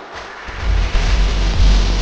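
Loud background music with heavy, pulsing bass; it dips briefly at the start, then comes back in full.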